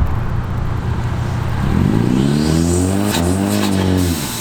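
Car engine accelerating: a steady drone, then the engine note climbs as it revs up and eases off again near the end.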